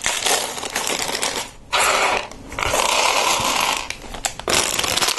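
Loose plastic Lego pieces clattering against each other and the tabletop as they are tipped out of their bag and spread around by hand, in several bursts of rattling.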